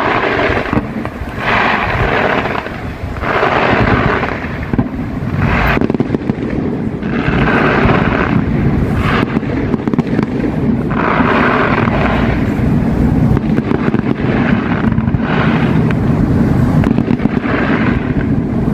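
Fireworks display going off in a rapid, near-continuous series of bangs and crackling bursts over a steady low rumble.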